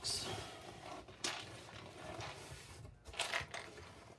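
Loose plastic Mega Bloks building bricks rattling and clicking as they are handled, with a louder clatter at the start and again about three seconds in.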